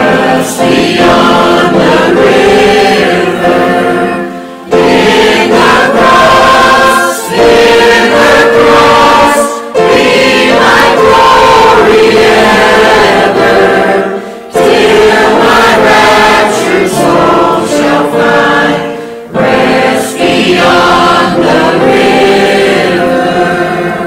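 Church choir of men and women singing a hymn together, in long phrases of about five seconds each with short breaks between them.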